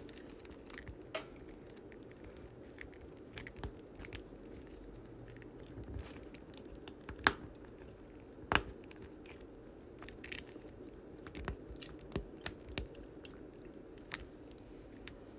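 Small scattered clicks and taps of round resin diamond-painting drills and a drill pen as hands press them into the canvas under a clear plastic sheet. Two sharper clicks come at about seven and eight and a half seconds.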